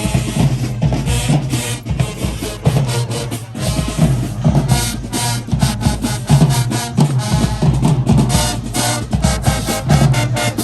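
High school marching band playing, with snare and bass drums hitting a fast, steady beat under the horns.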